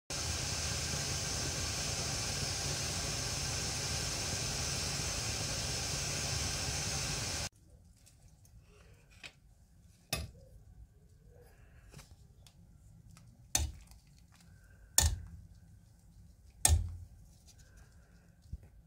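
Steady rushing bubble of a pot of water at a rolling boil on a gas stove. It cuts off suddenly about seven seconds in, leaving a quiet background broken by four sharp knocks and a few fainter clicks.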